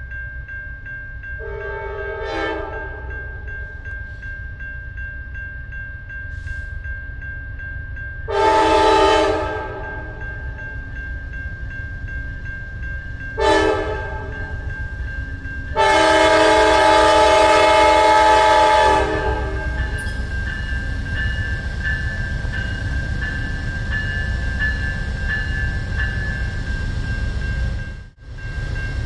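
Amtrak GE P42DC diesel locomotive's multi-note air horn sounding four blasts, two long, one short and one long, the grade-crossing signal. Under it the rumble of the approaching train grows louder, and a crossing bell rings steadily.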